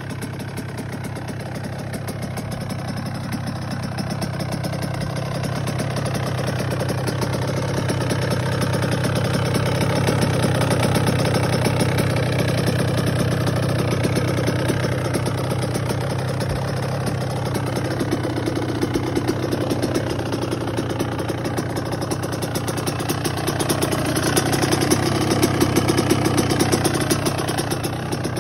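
Stock Suzuki RM85's 85cc two-stroke single-cylinder engine idling steadily on its stand. It grows louder about ten seconds in and again near the end.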